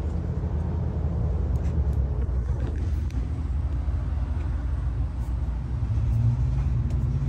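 Low, steady rumble of a motor vehicle's engine running, a little stronger near the end, with a few faint clicks.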